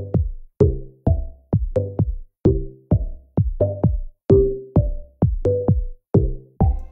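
Electronic intro music with a steady drum-machine beat, about two strikes a second, each strike carrying a short low pitched note.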